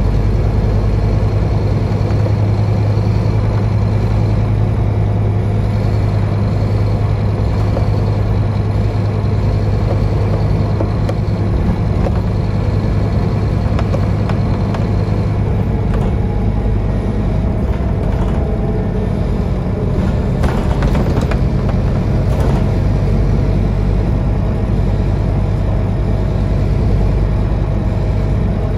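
Scania N230UD double-decker bus engine running under way, heard from inside the lower saloon as a steady low drone. A few rattles about two-thirds of the way through.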